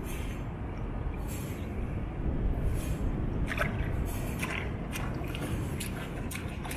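Small splashes and drips of swimming-pool water, a few short ones scattered through, over a steady low rumble.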